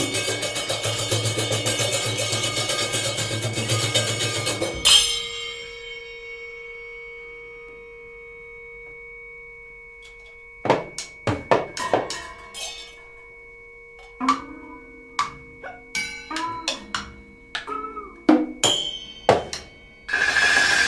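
Free-improvised percussion from a duo of drummers. A dense, fast roll stops with a sharp hit about five seconds in, leaving two steady held tones hanging. Then come sparse, scattered strikes, many ringing on at their own pitch, and a loud dense burst starts again near the end.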